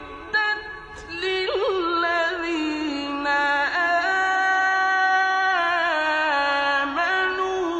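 Melodic Quran recitation: one voice chanting long held notes with slow ornamental turns, after a short break about a second in.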